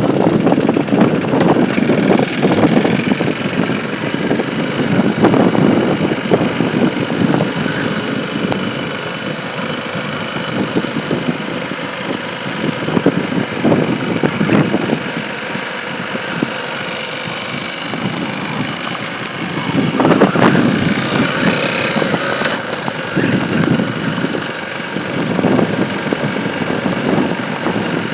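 Motor vehicle engine running steadily, its loudness rising and falling a little.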